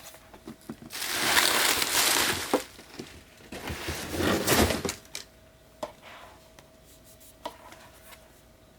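Packaging being unwrapped by hand: two bursts of crinkling and tearing, the first about a second in and the second around four seconds, then a few light clicks and taps.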